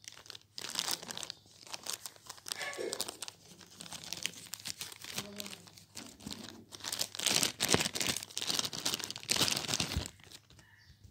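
Clear plastic wrapping crinkling and rustling as it is handled and a wristwatch is pulled out of it, in irregular crackles that are loudest from about seven to ten seconds in.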